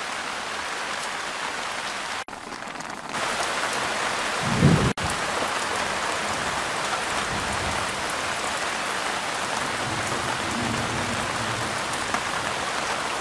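Chicken legs simmering in sauce in a pan, a steady sizzling and bubbling, with a brief low thump about four and a half seconds in.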